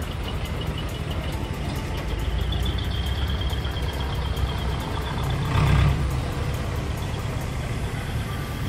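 Decorated flatbed trucks driving slowly past, engines running, with a steady high beep for a few seconds. Just before the six-second mark comes a brief loud burst of noise, the loudest sound here.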